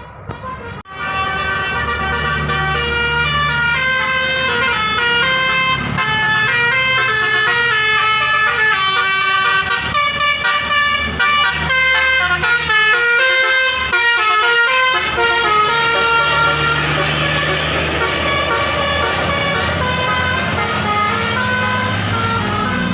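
Bus's telolet basuri horn playing a fast melody of stepping tones, starting about a second in, over a steady low drone.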